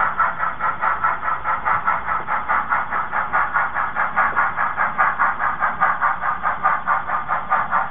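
Steam locomotive exhaust chuffing in a steady, even rhythm of about five beats a second, as a narrow-gauge steam engine pulls its train.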